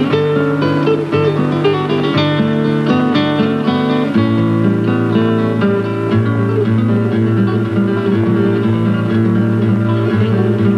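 Acoustic guitar music: plucked notes over a low bass line that steps down about four seconds in.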